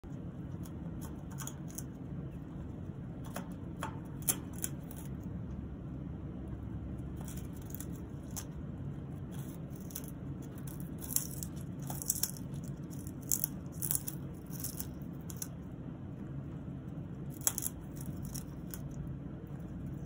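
Congo African grey parrot gnawing and splintering a wooden perch with her beak: irregular crisp cracks and crunches of wood, bunched in spells, over a low steady hum.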